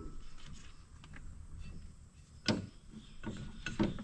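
Metal parts of a feeder house variable-speed pulley assembly being handled and fitted, with scraping and a few sharp metallic clicks in the second half as its bolt is started.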